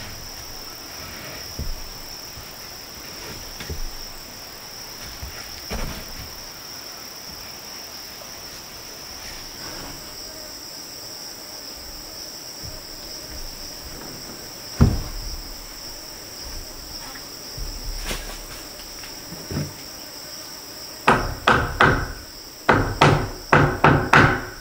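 Hammering: a few scattered knocks, then a quick run of ringing hammer strikes about three seconds before the end. A steady high-pitched insect drone runs underneath.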